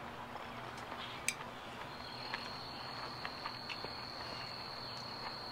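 Faint outdoor ambience with a steady, high insect trill that comes in about two seconds in, over a low hum. A few light clicks of a metal spoon against a small glass bowl.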